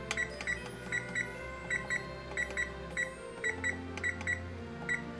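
Electric oven's touch control panel giving a short high beep with each press as the kitchen timer is tapped up one minute at a time: about twenty beeps in quick, uneven succession.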